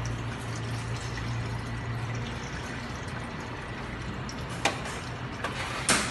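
Water running from a faucet into a stainless-steel bowl of carrots, a steady splashing. Two sharp clicks come near the end, the second the louder.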